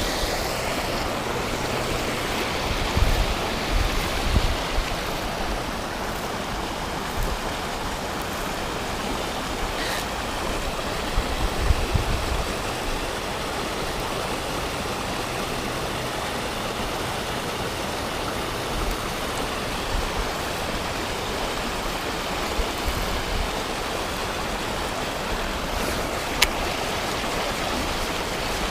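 Rain-swollen river current rushing steadily. There are a few low bumps about three to four seconds in and again around twelve seconds.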